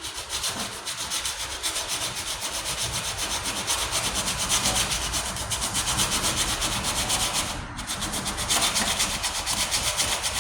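40-grit sandpaper rubbed by hand in rapid, even back-and-forth strokes over filler primer on a steel tailgate patch. The strokes break off briefly about three-quarters of the way through.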